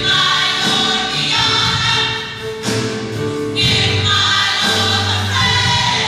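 Gospel choir of mixed women's and men's voices singing in harmony, in sustained phrases.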